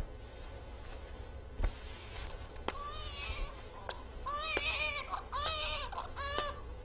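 A baby crying: short, wavering wails that start about three seconds in and come again and again.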